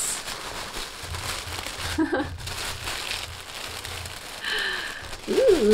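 Tissue paper rustling and crinkling as it is pulled open from around a hat.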